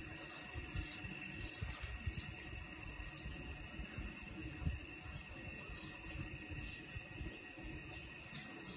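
Outdoor ambience with a steady high insect drone and short high chirps, frequent in the first couple of seconds and then sparser, over a low rumbling noise.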